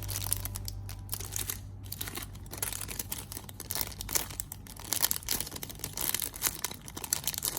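Plastic wrapping crinkling and rustling as it is handled, in quick irregular crackles.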